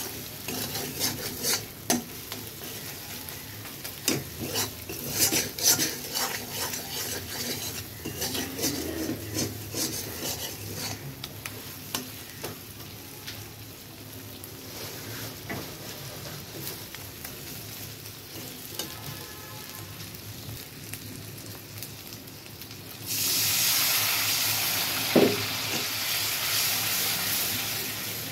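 Metal spatula scraping and clinking against an aluminium wok, stirring a frying onion-and-spice paste that sizzles underneath. About 23 seconds in, the sizzle jumps to a louder, steady hiss as the paste in the pan turns wet and runny, with one sharp clink of the spatula on the pan shortly after.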